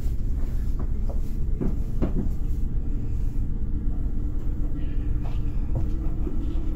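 Steady low rumble of handheld camera handling noise, with a few scattered soft knocks from footsteps and the camera being moved while walking down a carpeted staircase.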